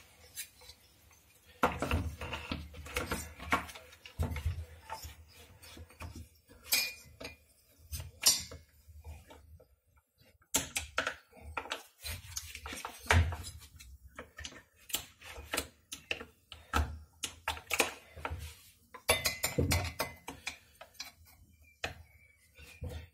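Irregular clinks, taps and knocks of metal and hard plastic parts being handled: a Stihl 017 chainsaw's cylinder being fitted into its plastic housing, with a screwdriver tapping and levering at it.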